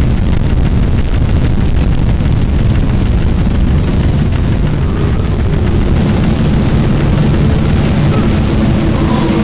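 Harsh noise music: a loud, unbroken wall of distorted noise, heaviest in the low rumble. About six seconds in, a few steady low drones come up through it.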